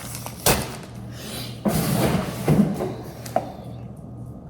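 Bathroom items and their packaging being handled: a sharp knock about half a second in, about a second of rustling, and a light click near the end.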